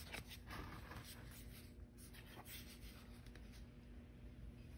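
Faint scratchy rubbing and shuffling as a taped watercolour board is shifted and tilted on a pile of paper towels.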